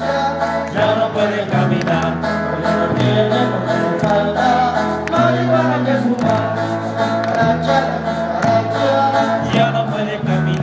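Live band of guitars, accordion and percussion playing a lively Mexican folk tune, with voices singing along over a bass line that changes note every second or so and steady percussive beats.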